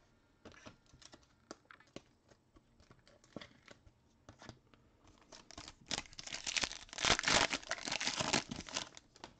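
Trading-card pack wrapper being handled and torn open: a few scattered light crinkles and clicks, then, about five and a half seconds in, a dense crinkling tear lasting a few seconds as the pack is ripped open.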